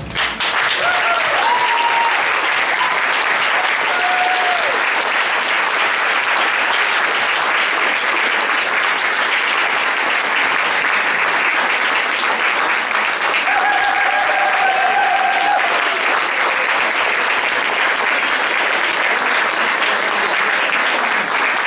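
Audience applauding steadily, starting abruptly as the music stops, with a few voices in the crowd cheering over the clapping.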